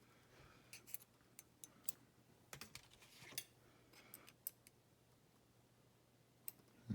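Faint, irregular small clicks and ticks of metal lock parts and a tool being handled while a Sesamee 533 padlock is taken apart, over a low steady hum.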